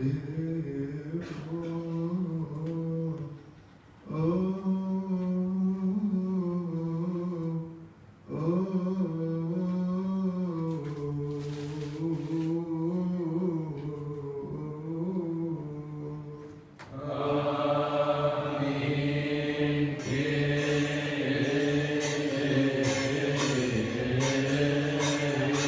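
A man's solo Coptic liturgical chant through a microphone, in long melodic phrases broken by two short pauses. About 17 seconds in, a louder chant takes over, and from about 20 seconds it is joined by rhythmic metallic percussion strikes.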